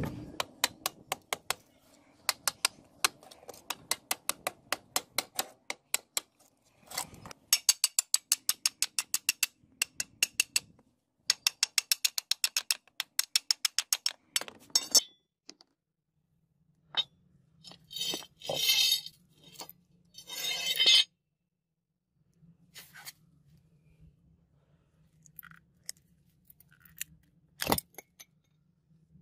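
Hammer blows on a steel chisel and the rusted metal fittings of a sword's grip: quick metal-on-metal strikes, several a second, for about the first fifteen seconds, knocking the grip apart. Then a few seconds of rough scraping and cracking, followed by scattered light clicks and one sharp knock near the end.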